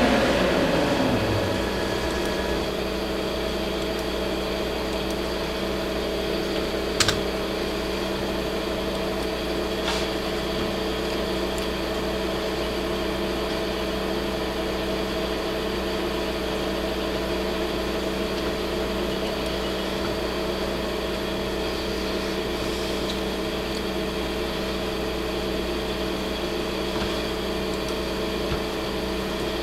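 Metal lathe running steadily, a machine hum of several steady tones, after a falling whine dies away in the first second or two. A sharp click about seven seconds in and a lighter one about three seconds later.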